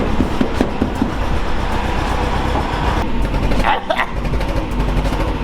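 Car engine running under way, with a few sharp exhaust pops in the first second. A brief high-pitched squeal rises and falls about four seconds in.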